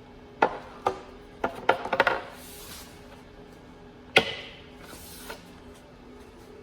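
A series of sharp knocks and snaps: several in the first two seconds, then one loud snap about four seconds in. They come from an ACM sign panel being pushed onto its MBS Button Fix wall mounts and snapped down into place. Faint background music plays underneath.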